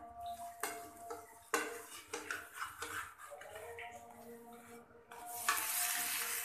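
A metal slotted spoon scraping and tapping against a non-stick frying pan as paratha batter is spread and pressed, with scattered clicks. A sudden loud hiss starts about five and a half seconds in.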